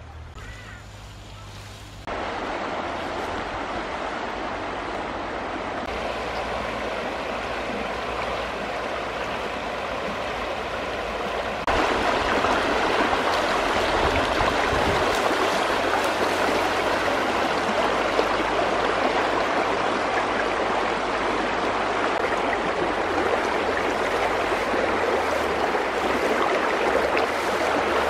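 Shallow stream rushing and gurgling around a person wading in it, a steady flow of water that gets louder about twelve seconds in.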